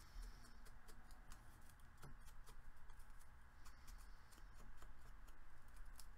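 Faint, scattered light clicks and taps of craft tools being handled on a table.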